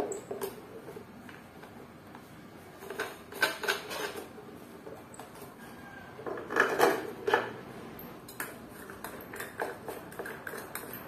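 Dishes and cutlery clinking and clattering as they are handled and put away, in scattered bursts that are busiest about three seconds in and again around seven seconds.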